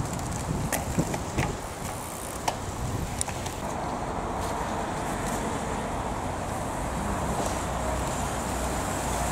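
Cyclocross bikes passing close on a muddy descent, with a few sharp clicks and rattles from the bikes in the first few seconds, over the steady noise of nearby road traffic. The traffic rumble grows a little louder toward the end.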